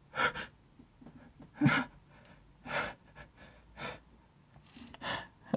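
A man's sharp, short breaths about once a second, with one louder voiced gasp near the middle: hitching breaths as an allergic tickle in the nose builds toward a sneeze.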